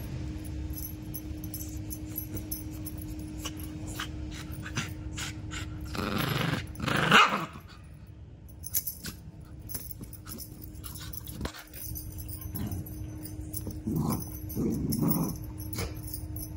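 Pet dog growling and barking in short bursts. The loudest comes about six to seven seconds in, and another group comes around fourteen to fifteen seconds in.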